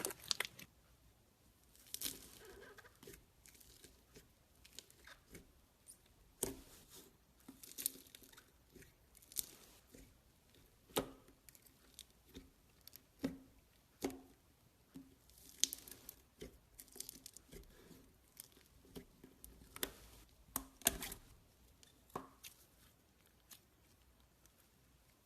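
Boba slime being squished and stretched by hand, giving faint, scattered sticky pops and clicks at irregular intervals.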